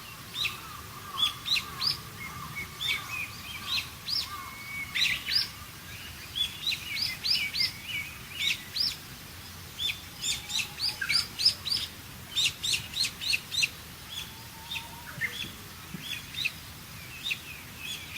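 Dawn chorus of several songbirds: short rising chirps, often repeated in quick runs of three to five notes, with a faint steady background hiss.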